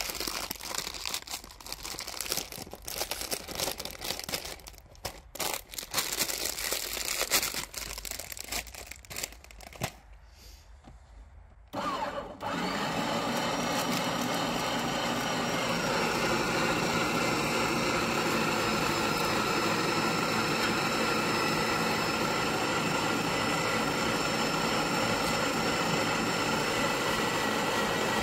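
Plastic cracker bag crinkling and rustling as it is crumpled and handled, with scattered clicks. Then, about halfway through, an electric meat grinder starts and runs steadily, grinding bruschetta crackers into crumbs.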